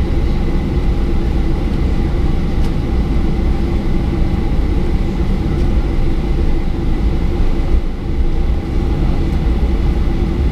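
Boeing 737-800 taxiing, heard inside the cabin: its CFM56-7B turbofans running at taxi power with a steady low rumble and a faint steady high whine.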